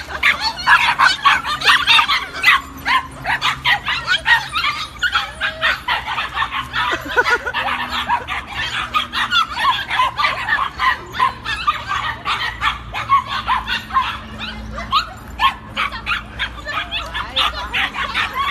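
Several puppies yipping and barking over one another, high-pitched and almost without a break.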